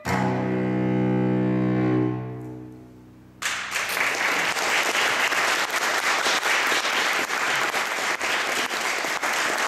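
Solo cello, its lower strings tuned down to B and F#, bowing the final chord of the movement: held for about two seconds, then dying away. About three and a half seconds in, audience applause breaks out suddenly and goes on.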